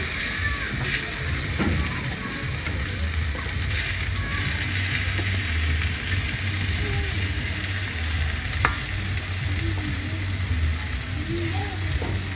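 Chicken backs sizzling on a greased, lit jerk grill, a steady hiss over a low rumble, with one sharp click about two-thirds of the way through.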